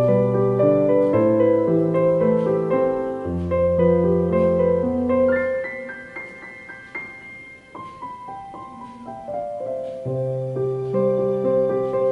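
Background piano music: a soft, slow melody with held notes, growing quieter for a few seconds in the middle.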